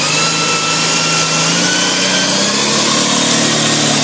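Electric drag motorcycle doing a burnout: the electric motor gives a high whine that rises slowly, over the loud hiss of the rear tyre spinning on the track.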